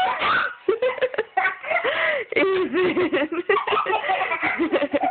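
Young children laughing and squealing in high voices, in short bursts that follow one another closely.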